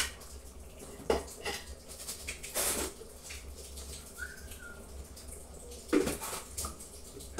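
A few scattered knocks and clatters of cookware and utensils being handled at the stove, over a low steady hum.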